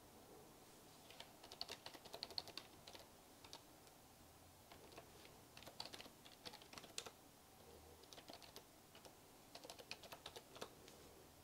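Faint typing on a computer keyboard: three short runs of quick keystrokes with brief pauses between them.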